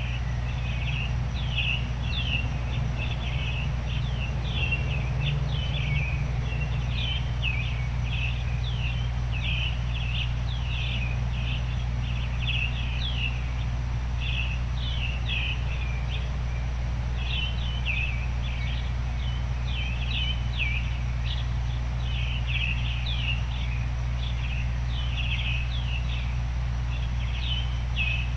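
Small birds chirping continuously in short, quick falling chirps, several a second, over a steady low noise bed.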